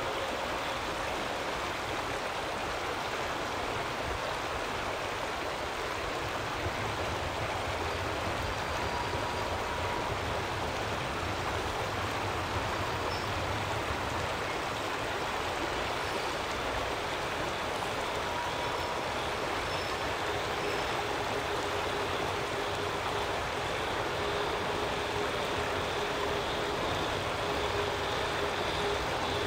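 Shallow creek rushing steadily over rocks. From about two-thirds of the way through, a faint distant steam locomotive can be heard under the water noise as it approaches.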